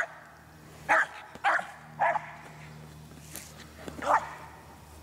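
American Eskimo Dog barking at play with a ball: short single barks, three in quick succession about a second in, then a pause and one more near the end.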